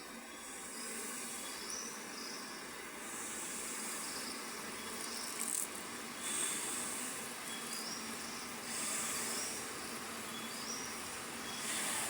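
Insects chirping and trilling: high-pitched trills swell and fade several times over a steady background hiss, with short chirps repeating between them.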